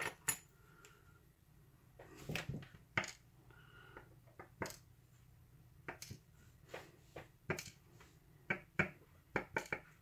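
Scattered small metallic clicks and clinks as a Schlage lock plug and its key are handled and set against a wooden pinning tray, a dozen or so separate taps with gaps between them and a quick run of several near the end.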